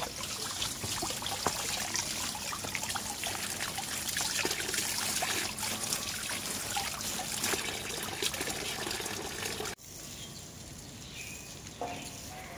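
A thin stream of running water trickling and splashing over a handful of freshly picked leaves as they are rinsed by hand. It cuts off suddenly about ten seconds in, leaving a quieter outdoor background.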